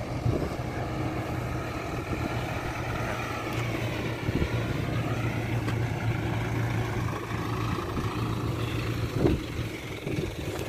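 Truck engine running steadily with a low hum. Around the middle a higher whine dips and rises in pitch.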